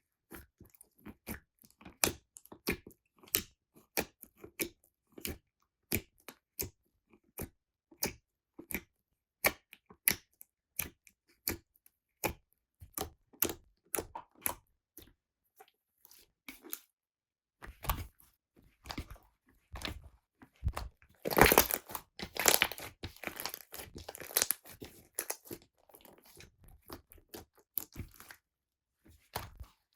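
Slime being squeezed and poked by hand: a run of short, sharp sticky pops and clicks, one or two a second, then a denser stretch of crackling about twenty seconds in.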